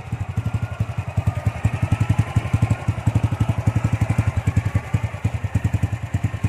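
Honda Wave 100 Alpha's single-cylinder four-stroke engine idling through an aftermarket organ-pipe exhaust, a steady, even beat of about nine exhaust pulses a second.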